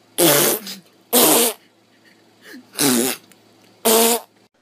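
People blowing raspberries, loud mouth-made fart noises: four bursts of about half a second each, one every second or so.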